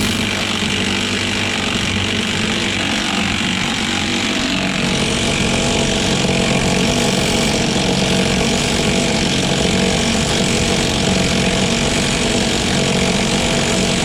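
Battery-powered gun running continuously, driving a bead-breaker tool down to break a tyre's bead off the wheel rim; its note changes a little about five seconds in.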